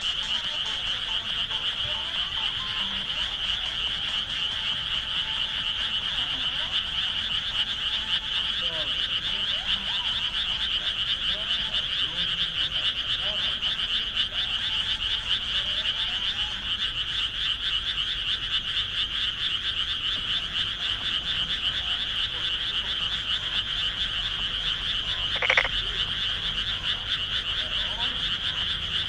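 A dense, steady chorus of many frogs calling together from the rice paddies, an unbroken high-pitched trilling mass. About 25 seconds in, one brief sharp sound stands out above it.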